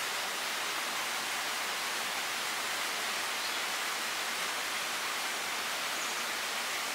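Steady rushing of a forest stream, an even hiss of running water that neither rises nor falls.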